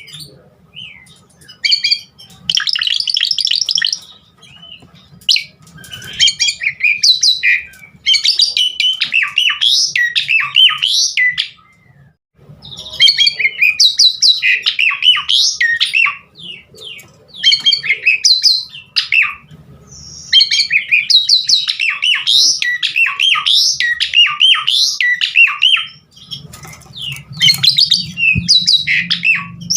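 Asian pied starling (jalak suren) in full song, a loud varied stream of rapid rising and falling whistled and chattering notes. It sings in bursts of one to several seconds with short pauses between, over a faint low hum that grows stronger near the end.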